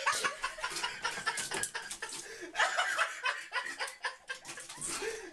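A person laughing in a run of short, breathy bursts.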